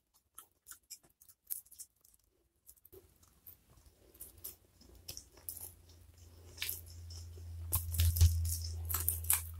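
Fingers working rice and chili sambal on a plate, with small sticky clicks and crackles, then a mouthful taken and chewed close to the microphone. The eating sounds grow louder about three seconds in and are loudest near the end.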